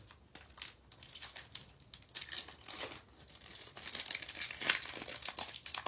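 Wrapper of a 2022 Topps Series 1 baseball card pack crinkling and tearing as it is opened by hand, an irregular crackle that grows louder and denser in the second half.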